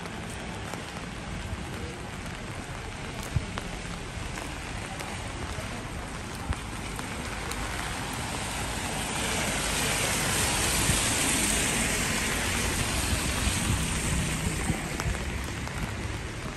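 Outdoor city-street ambience: a steady hiss that swells louder from about halfway through and fades again near the end, with a couple of sharp clicks early on.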